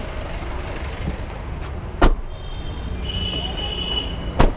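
Doors of a new Tata Nexon being shut: two solid slams about two seconds apart, over steady background traffic noise.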